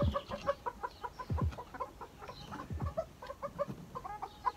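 Silkie bantam hens clucking in a quick run of short notes, about three or four a second, as one is caught by hand, with a few low dull bumps.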